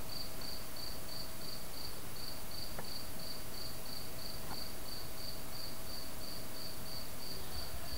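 Steady high-pitched chirping, about three chirps a second, over a faint steady hum, with a couple of faint ticks in the middle.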